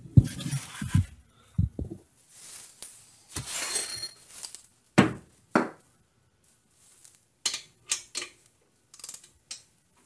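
Irregular metallic clinks and knocks of a wrench being set on and worked against the 18 mm bolts that hold a Brembo front brake caliper, with short quiet gaps between strikes.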